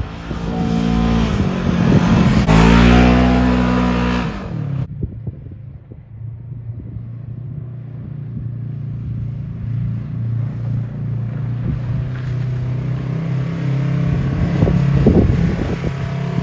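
Polaris RZR XP1000 side-by-side engine accelerating, its note rising in pitch, then dropping away suddenly about five seconds in to a steadier, lower running drone that swells again near the end.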